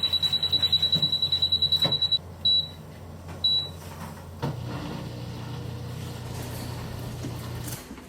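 An electronic beeper sounding a fast run of high beeps, about ten a second for two seconds, then two single short beeps. About halfway through a low steady hum starts, and it stops shortly before the end.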